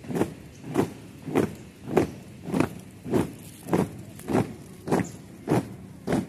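A column of marchers stamping their shoes on paving in unison, one sharp step about every 0.6 seconds in an even cadence.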